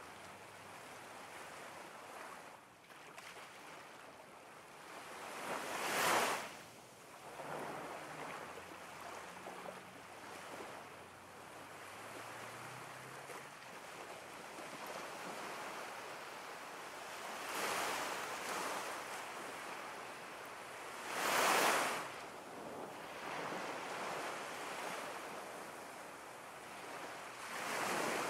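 Ocean surf: a steady wash of waves, with breakers swelling up and falling away several times. The two loudest come about six seconds in and again about three-quarters of the way through.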